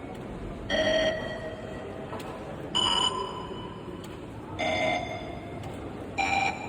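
Very high-speed Morse code from the RUFZXP callsign-copying program: four short bursts of keyed tone about two seconds apart, each at a different pitch. Each burst is one amateur radio callsign sent too fast to pick out single dots and dashes.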